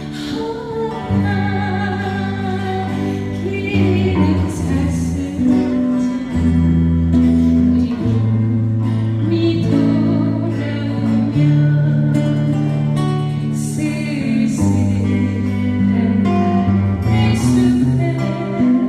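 Live song performance: a voice singing over guitar, with long sustained bass chords changing every few seconds.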